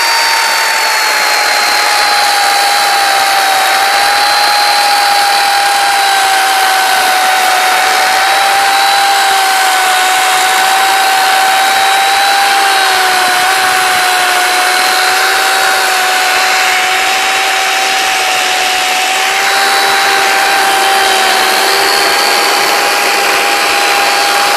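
Corded electric chainsaw running continuously at full speed with a steady high whine. The pitch eases slightly lower over the first few seconds, then holds level.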